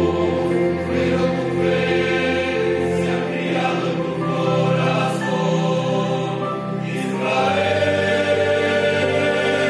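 Mixed choir of women's and men's voices singing sustained chords in parts, swelling fuller with stronger low voices about three quarters of the way through.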